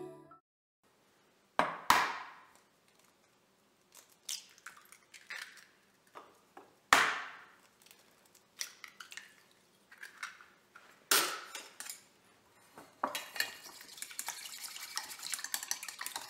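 Eggs knocked against the rim of a stainless steel bowl and cracked in: a few separate sharp clinks with a short ring. Near the end, quick steady clicking as the eggs are beaten in the metal bowl.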